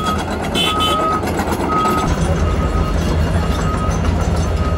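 Heavy tracked excavator's diesel engine running with a steady low rumble while its warning alarm sounds a high single-tone beep about once a second.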